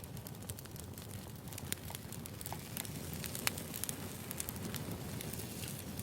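Wood fire crackling: scattered sharp pops and snaps over a low, steady rumble of burning logs.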